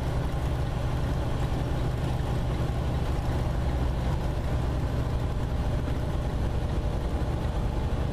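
Steady low drone of a truck's engine and tyres heard from inside the cab while cruising at highway speed.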